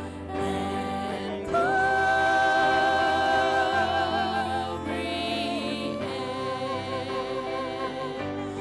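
Worship singing: vocalists hold long notes with vibrato over a steady sustained accompaniment. One held note rings out loudest from about a second and a half in.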